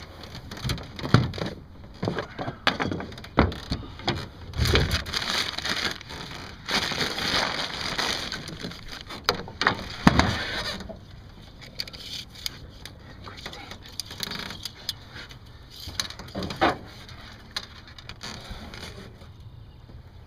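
Knocks, clatters and rustling of gear being rummaged in a boat's storage hatch, with several sharper thumps scattered through it.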